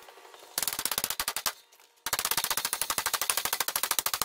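A power impact tool hammering rapidly, about 18 blows a second, in two bursts: a short one of about a second, then a longer one of about two seconds.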